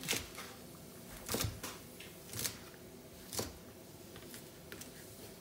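Kitchen knife chopping through a bunch of long beans onto a plastic cutting board: four sharp chops about a second apart, with lighter taps between.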